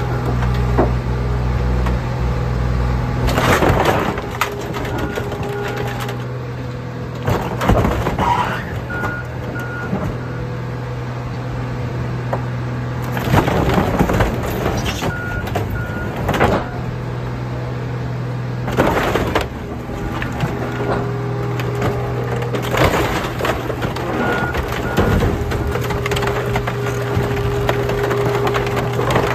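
Car crusher's press flattening a pickup truck: the truck's body panels, frame and glass crack and crunch in loud bursts every few seconds over a steady drone of machinery.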